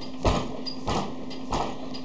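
Rocking chair rocking back and forth, sounding once at each swing, about every two-thirds of a second and three times here, over a steady low hum.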